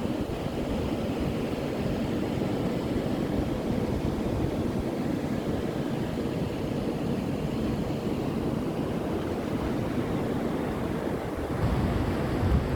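Sea surf washing steadily onto a beach, with wind buffeting the microphone; the buffeting grows stronger near the end.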